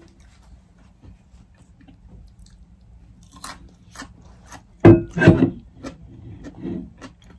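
Close-up mouth noises of eating and drinking: scattered small clicks and smacks, with two loud knocks about five seconds in.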